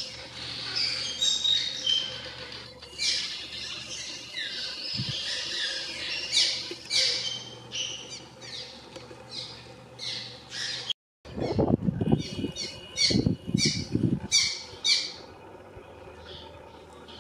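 Cliff swallows calling at their mud nests: a steady stream of short, squeaky chirps and chattering calls. A spell of low rumbling noise comes in under the calls from about eleven to fourteen seconds in.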